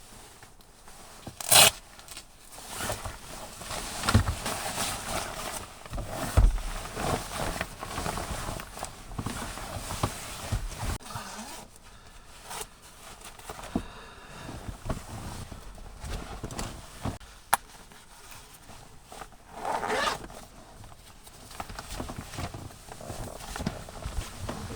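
Clothing and gear rustling with zips pulled, as someone changes into trousers and moves things about; the sharpest zip strokes come about a second and a half in and again near twenty seconds in.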